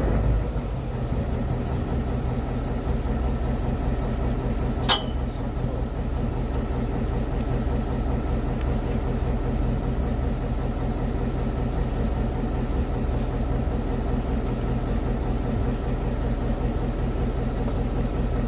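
Fishing boat's engine running steadily with an even hum. There is one sharp click about five seconds in.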